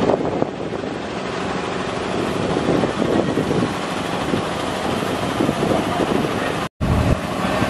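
A small engine running steadily, with outdoor background noise; the sound cuts out for an instant about three-quarters of the way through.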